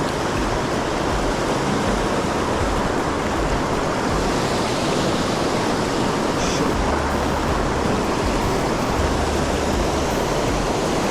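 Mountain stream water rushing and splashing over rocks, a steady unbroken rush.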